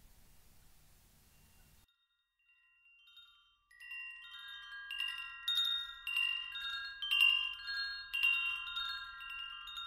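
Wind chimes ringing: clusters of overlapping struck metal tones that start about four seconds in and keep sounding. Before them, a faint low drone cuts off about two seconds in.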